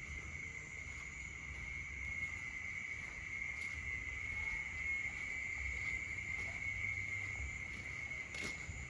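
A steady, high-pitched chorus of night insects trilling continuously, over a low uneven rumble, with a single sharp click near the end.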